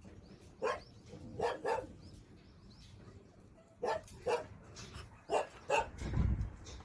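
A dog barking in short, sharp barks, several of them in quick pairs.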